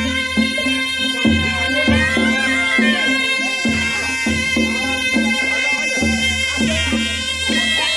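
Traditional folk music: a reedy wind instrument plays a sustained, ornamented melody over a regular low drum beat.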